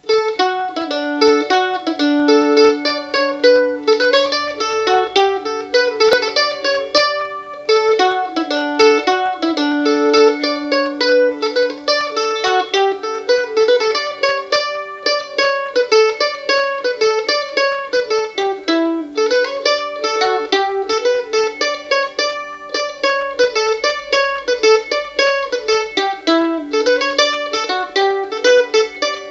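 Mandolin playing a tune in a steady stream of quickly picked notes, with no bass or other instruments.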